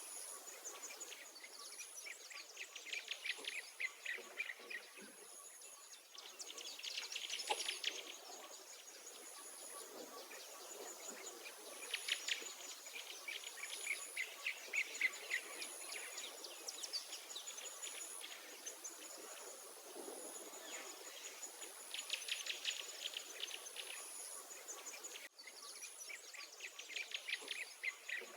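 Songbirds singing rapid trills and chirps in bouts every few seconds, over a steady row of high-pitched insect pulses about once a second.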